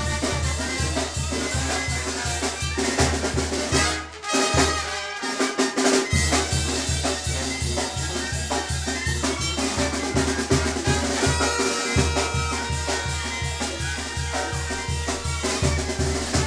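Live brass band playing dance music: trumpets and drums over a steady, even bass beat, with the bass dropping out briefly about four seconds in.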